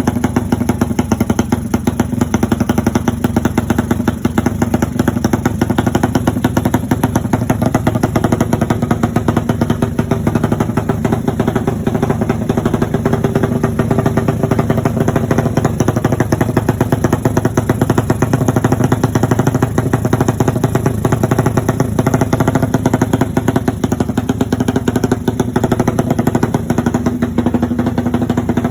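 Modified motorcycle exhaust running steadily, with a rapid, even stream of exhaust pulses and no revving.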